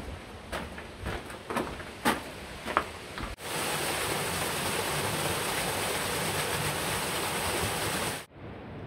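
Footsteps crunching on a gravel path, irregular, with a couple of sharper knocks. About three and a half seconds in this gives way to the steady rushing of a small waterfall splashing into a pool. The waterfall stops abruptly near the end, leaving a quieter, duller hiss.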